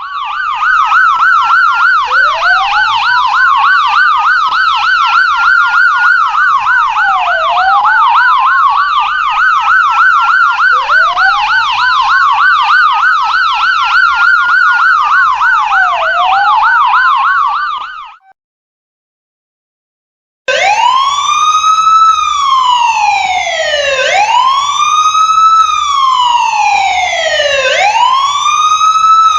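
Police car siren: a rapid warbling yelp layered over a slow rising-and-falling wail, which cuts off about 18 seconds in. After a two-second silence a different siren pattern starts, a single wail rising and falling about every three and a half seconds.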